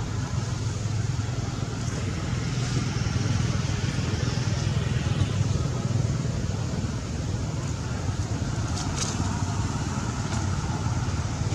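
Steady engine noise of road traffic, a low hum that runs on without break.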